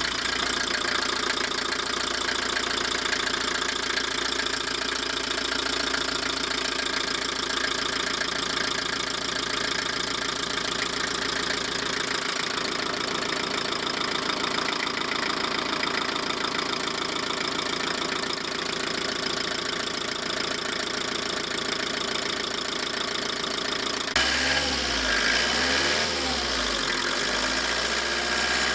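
Van engine idling steadily, running on a newly fitted timing belt. About 24 s in, the sound changes to a louder, wavering low rumble.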